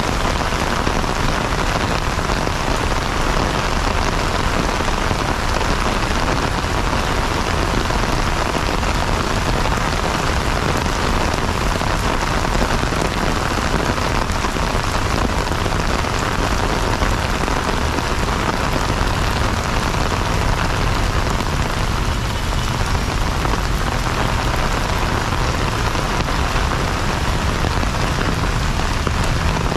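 Heavy rain falling steadily on wet paving.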